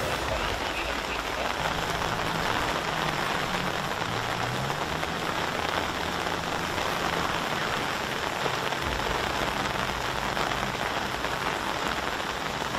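Heavy rain falling steadily, an even hiss throughout, with a low hum underneath through most of it.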